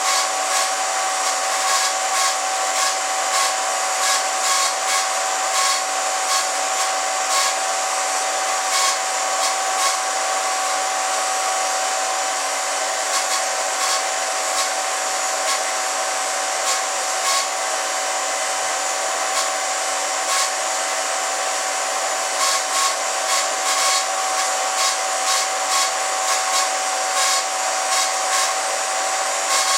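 Film projector running a home movie: a steady whirring hiss with a constant hum-like tone and irregular small ticks and crackles.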